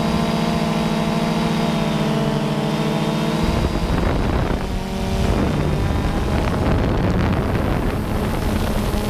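Small multirotor drone's propellers humming steadily, picked up by the drone's own camera, with wind rushing over the microphone. From about three and a half seconds in, the wind noise grows and partly covers the hum.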